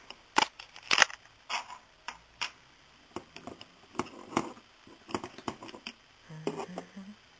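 Irregular sharp clicks and light knocks of small metal parts being handled on a bench: a 3 mm Allen key and the Lovejoy coupling on a mini mill's Y-axis leadscrew, the key set down on the tabletop.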